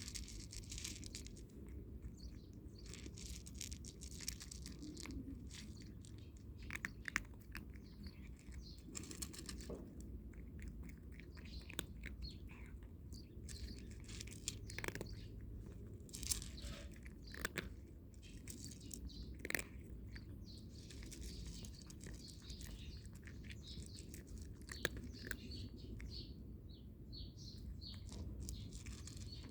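A cat crunching dry kibble, with short, crisp, irregular crunches throughout, and birds chirping in the background.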